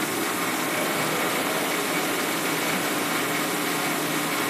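Benchtop metal lathe running steadily with its chuck spinning and the power crossfeed engaged, giving an even motor-and-gear whir with a faint high whine.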